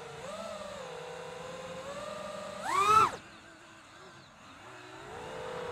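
Drone motors and propellers whining at a steady pitch, then a sharp throttle punch about three seconds in where the whine jumps up in pitch and loudness to drive a climb, before falling away to a quieter, lower whine that slowly rises again near the end.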